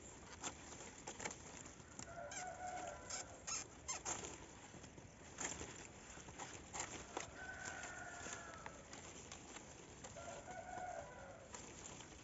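Palm fronds rustling and crackling as they are handled, with a rooster crowing three times.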